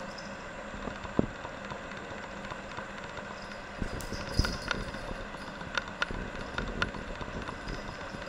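A cat's paws and claws pattering and clicking on a hard tiled floor as it runs off with a toy in its mouth. The irregular taps start about four seconds in, after a single sharp knock about a second in.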